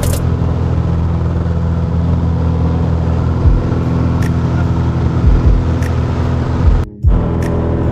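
Light aircraft's piston engine running steadily at takeoff power, heard from inside the cabin during the takeoff roll, with a few short knocks. The sound briefly cuts out about seven seconds in.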